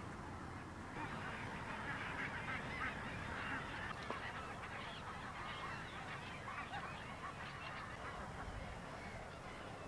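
A flock of geese honking, many short overlapping calls, growing denser about a second in, over a steady low rumble.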